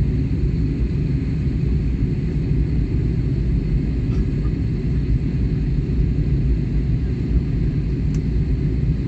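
Steady low rumble of a jet airliner's cabin in flight, the engines and airflow heard from a window seat.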